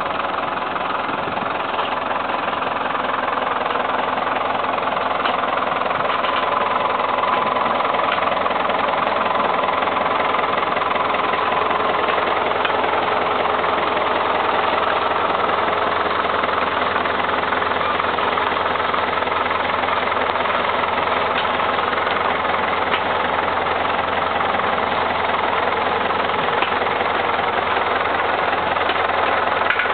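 A farm tractor's engine running steadily as it tows a fiber-optic cable plow through the soil.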